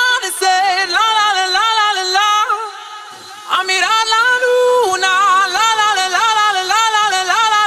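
A single voice singing a wavering, ornamented melody with no accompaniment, breaking off briefly about three seconds in.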